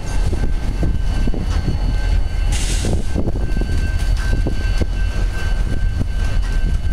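Canadian National freight train rolling past close by, its loaded centerbeam flatcars making a steady low rumble with irregular clacks of wheels on the rails and a faint steady high ring. A short hiss comes about two and a half seconds in.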